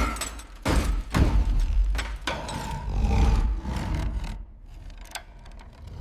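Sound effects of heavy moving machinery: a deep rumble with several heavy thuds, the last of them about five seconds in.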